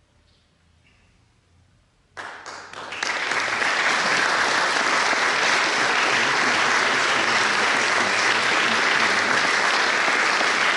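Audience applause: near silence, then a few scattered claps about two seconds in that quickly swell into steady applause.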